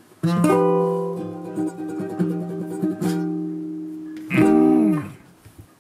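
Acoustic guitar strumming the closing chords of a song: a chord struck about a quarter second in and left to ring, another about three seconds in, and a last, loudest one near the end that dies away.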